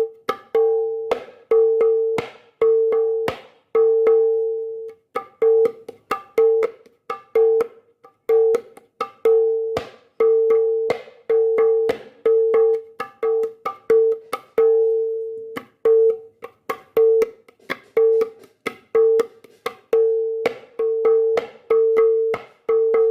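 Ketipung, a small Indonesian kendang hand drum, played in a steady rhythm: ringing pitched strokes with sharper slaps in between. Freshly repaired and tuned higher, it now rings clear instead of buzzing.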